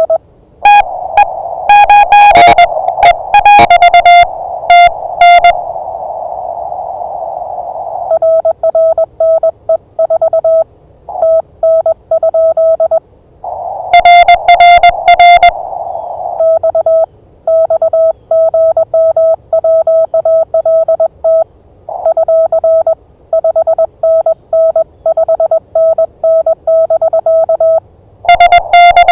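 Morse code (CW) from an amateur radio transceiver during a Parks on the Air pileup: on-off keyed tones at one pitch in quick dot-and-dash groups. Louder, harsher-sounding bursts near the start, in the middle and at the end alternate with a cleaner-sounding keyed signal, with a band of receiver hiss in the pauses.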